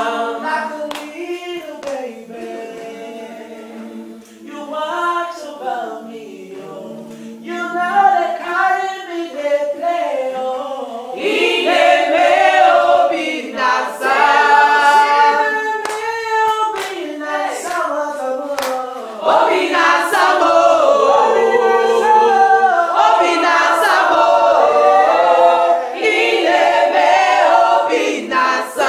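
A small group singing a worship song a cappella, with hand claps keeping time. The singing is softer at first and swells louder about a third of the way in, and again a little past halfway.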